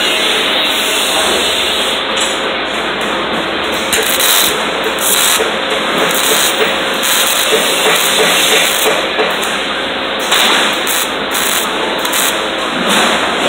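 Arc welding: a continuous crackling hiss from the welding arc, with the crackle breaking up and surging irregularly from about two seconds in.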